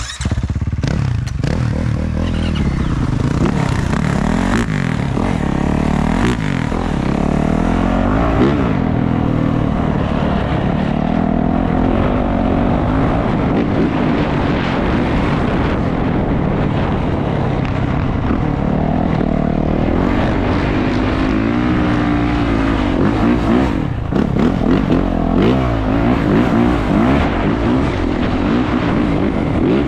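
450cc four-stroke dirt bike engine running under load while being ridden, its pitch rising and falling as the throttle opens and closes.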